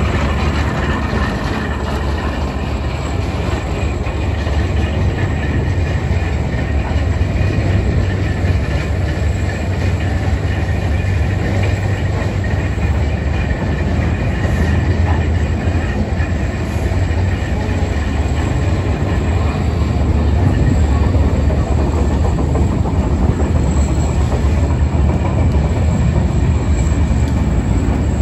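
Railroad turntable bridge rotating with a load of riders aboard, a steady low rumble of the turning bridge and its drive.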